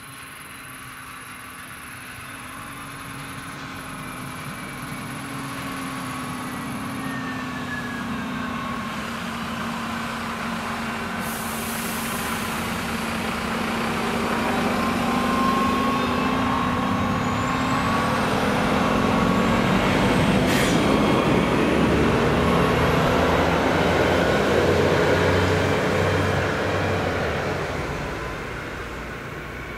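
Stadler Regio-Shuttle RS1 diesel railcar passing over the level crossing. Its engine and wheel noise build up, are loudest in the second half, and fade away near the end.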